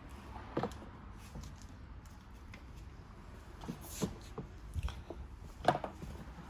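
Scattered clicks and knocks of plastic quad-bike body panels and screws being handled and fitted, the loudest knock near the end.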